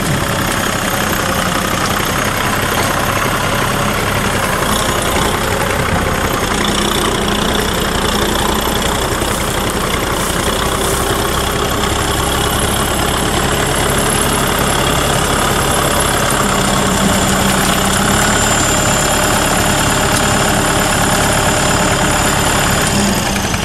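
Farm tractor's diesel engine running steadily as the tractor works through a muddy, flooded rice paddy on iron cage wheels.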